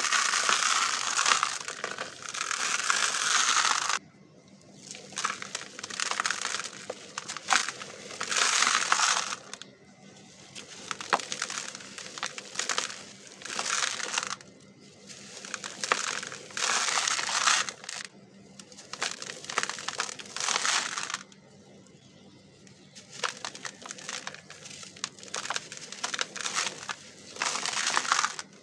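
Pressed discs of dry red dirt crushed and crumbled by hand in a plastic tub. The gritty crunching comes in repeated bursts of a second or two, the longest over the first four seconds, with quieter grainy rustling between.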